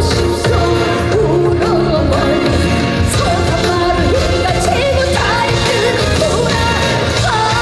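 Live trot song: a woman sings over a band with a steady beat.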